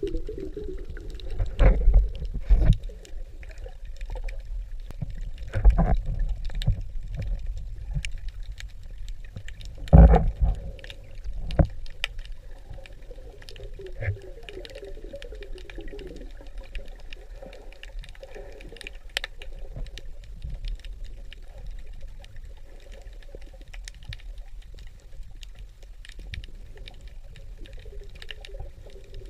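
Underwater sound picked up by a camera in the sea: a steady low rumble of moving water with four heavy thumps in the first ten seconds, scattered sharp clicks and a faint wavering hum.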